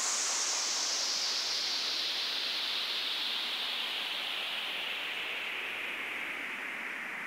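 A synthesized white-noise sweep at the close of an electronic dance track: a hiss with no beat under it, its brightness falling steadily as it slowly fades.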